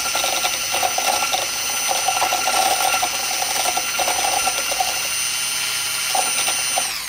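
Electric hand mixer with a whisk attachment running steadily in a cup, whipping egg yolks and oil into mayonnaise, with an uneven chatter from the whisk in the thickening mixture. Near the end it is switched off and its whine falls away.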